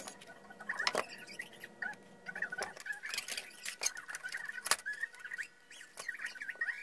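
Sharp clicks and knocks of a sheet-metal power-supply case and its circuit board being handled and fitted together, several times. A bird chirps repeatedly throughout.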